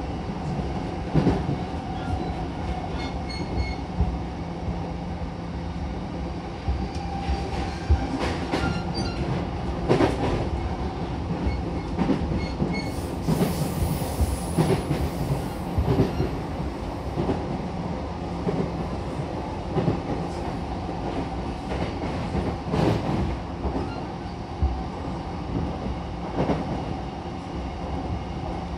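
Interior running sound of an E233-7000 series electric commuter train at speed: a steady rumble of wheels and running gear with a faint hum, broken by irregular clunks as the wheels cross rail joints every few seconds.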